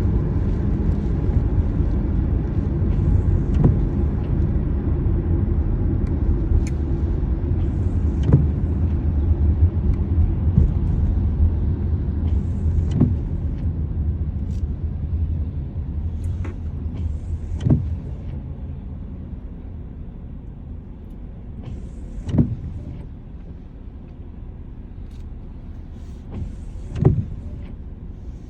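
Car on the move: a steady low road rumble that dies down over the last third, with a short knock about every five seconds.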